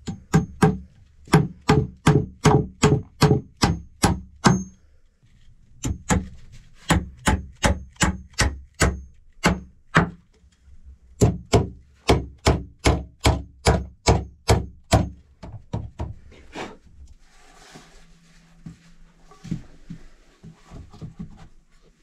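Axe poll hammering on wooden planks, nailing the seat boards onto a log bench: three runs of sharp blows at about three a second, with short pauses between them. After about 17 s the blows stop, giving way to quieter shuffling of wood and a few light knocks.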